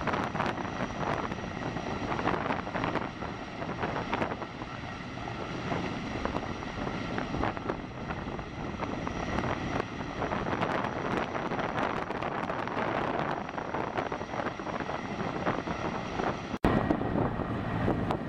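Sikorsky S-64 Skycrane helitanker hovering low over the water to take on water through its snorkel: steady rotor and turbine noise with a thin high whine. The sound cuts out for an instant near the end and resumes a little louder.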